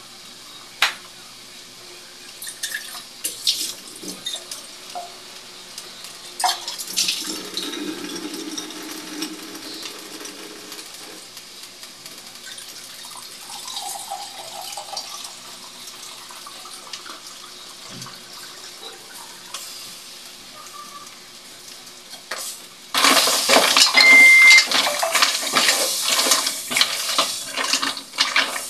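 A stainless steel pot of mussels in broth on the stove, quiet apart from a few light clicks, then loud near the end as the mussels are stirred with a spatula: a rapid clatter of shells against the pot with liquid sloshing.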